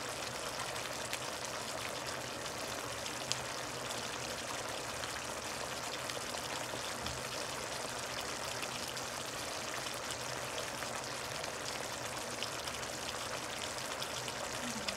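Pork spare ribs boiling in their cooking liquid until tender: a steady bubbling hiss with a few faint pops.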